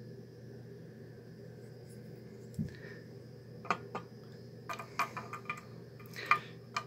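Light metal clinks and taps as a metal belt buckle is set down on a table and a keychain with a metal snap clip and key ring is picked up and handled: a dull knock, then a run of short sharp clicks, the loudest near the end. A faint steady hum runs underneath.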